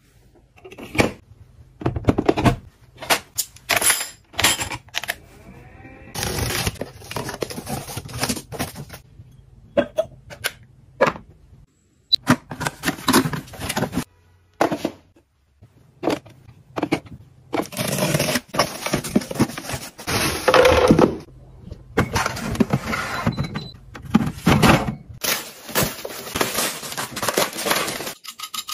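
Products being unboxed and handled: cardboard boxes and plastic packaging rustling and crinkling in long stretches, between quick clicks and knocks of parts being picked up and set down.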